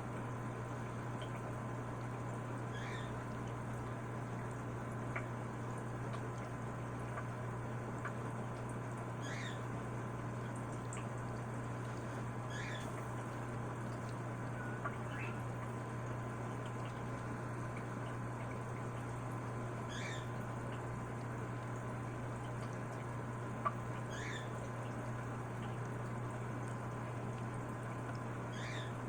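Steady low hum and water hiss of aquarium equipment, with a faint constant high tone. Short high chirps recur every three to five seconds, with a couple of tiny clicks.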